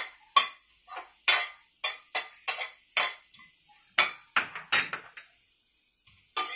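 Metal spatula scraping and clanking against a stainless steel pan in quick strokes, about two or three a second, with a pause of about a second near the end. Onion and garlic are being stirred dry in the preheated pan with no oil, so the metal-on-metal strokes carry the sound.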